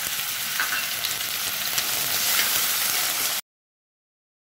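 Small peeled shrimps frying in hot mustard oil: a steady sizzle with faint crackles, which cuts off suddenly a little over three seconds in.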